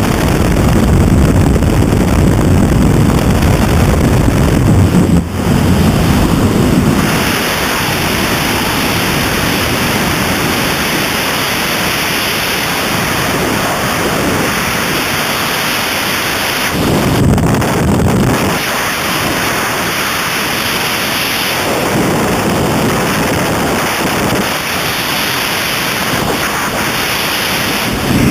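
Loud wind rush buffeting the microphone during a skydive. The first seven seconds at the open door of the jump plane have a heavier low rumble from the propeller wash. After the exit, steady freefall wind roar follows, with a low gusty swell about halfway through.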